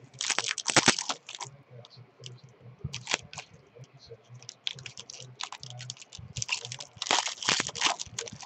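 Foil wrapper of a trading-card pack being torn open and crinkled in the hands. There is a dense burst of crackling at the start and another about seven seconds in, with scattered single crinkles between.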